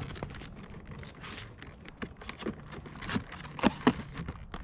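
Irregular light knocks, taps and rustles of someone in slide sandals stepping about on a wooden trailer deck, with two sharper knocks close together a little before the end.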